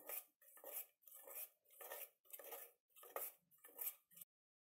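Spoon stirring thick gram-flour batter in a steel pot, a faint wet scraping against the pot in regular strokes about twice a second, cutting off suddenly shortly before the end.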